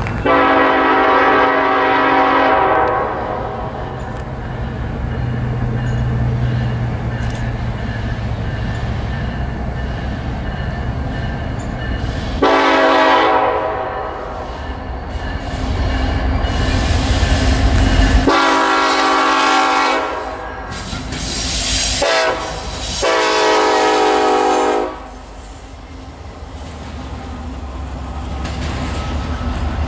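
Norfolk Southern diesel locomotives' air horn sounding several tones at once. It gives one long blast, then, as the train draws closer, long, long, short, long: the grade-crossing signal. The diesel engines' rumble grows between the blasts, and near the end the locomotives are past and the intermodal cars roll by with steady wheel clatter.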